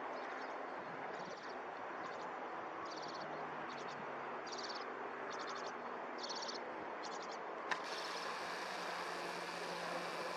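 Outdoor background noise with short, high, rapidly pulsed chirps repeating irregularly about once a second. A sharp click comes about three-quarters of the way through, and after it the sound turns to a steady hum.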